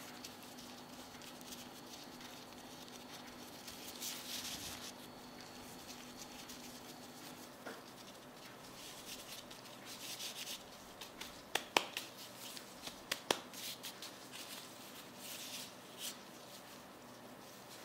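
Plastic food-prep gloves rustling and rubbing as hands press cornstarch into a cut potato on a ceramic plate, with a few sharp taps about two-thirds of the way through. A faint low hum runs under the first half.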